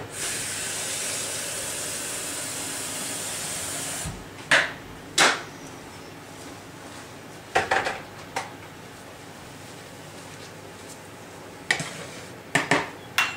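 A steady hiss for about four seconds stops suddenly, then kitchen dishes and utensils knock and clatter about eight times, some knocks single and some in quick pairs.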